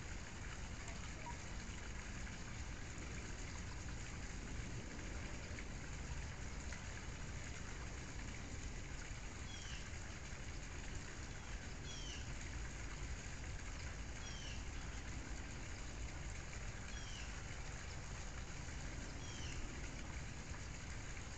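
A steady, even hiss, with a short high chirp that falls in pitch, repeated five times about every two and a half seconds in the second half.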